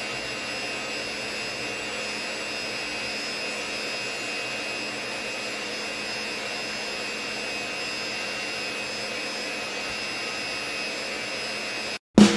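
Mini polisher with a soft foam pad running steadily against a motorcycle tank's paint: an even motor whir with a constant high whine. It cuts off suddenly near the end.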